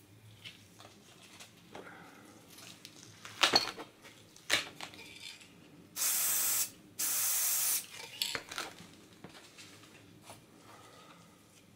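Aerosol spray-paint can sprayed in two short bursts of steady hiss, each under a second, about six and seven seconds in. Before them come a few sharp knocks and clicks, the loudest about three and a half seconds in.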